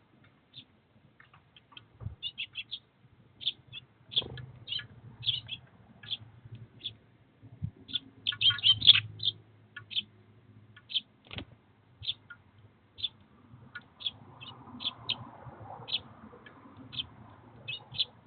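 Eurasian tree sparrows chirping at a seed feeder: many short high chirps, most crowded together about halfway through. A few sharp knocks come between them.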